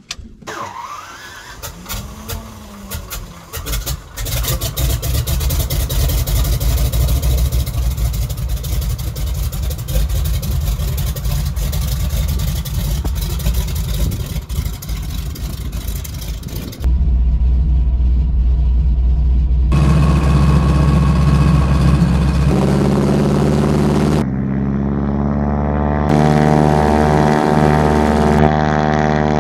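Float plane's piston engine cranking and catching, then running with propeller noise. Over the last ten seconds the engine note steps up and down several times.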